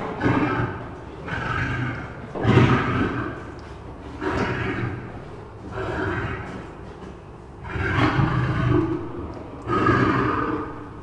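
Lion roaring in a series of deep, drawn-out calls, one about every two seconds.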